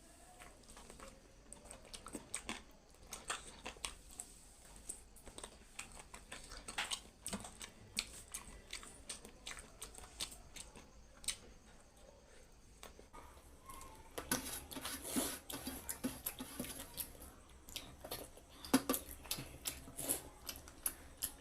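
Close-miked eating sounds: chewing and small wet mouth clicks, with many irregular light clicks that come thicker in two stretches in the second half.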